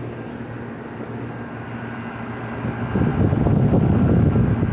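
Outdoor air-conditioner condensing units running in cool mode, a steady hum of compressors and fans. About three seconds in, a louder low rumble rises over the hum.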